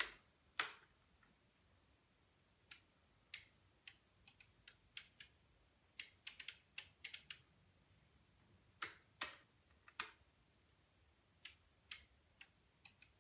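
Faint, irregular clicks in small clusters from a relay computer's front-panel pushbuttons and switches pressed by hand as a program is entered into memory.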